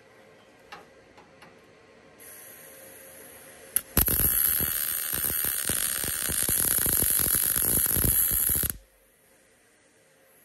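MIG welder's arc crackling as it welds a thick steel strengthening plate onto a car's chassis rail. The crackle starts about four seconds in, runs for about four and a half seconds and cuts off suddenly when the trigger is released.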